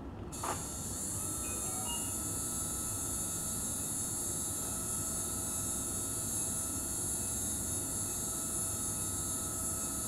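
Otologic surgical drill spinning up about half a second in, then running at a steady high pitch. Its 0.8 mm diamond dust burr is grinding down the hydroxyapatite head of a total ossicular prosthesis so that it will fit a very narrow ear.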